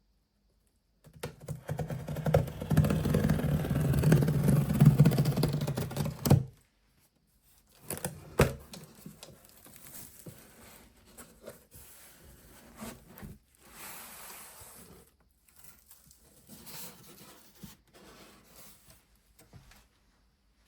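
Hands handling computer parts and packaging: several seconds of loud crinkling and rustling, then scattered light clicks and knocks with one sharper click.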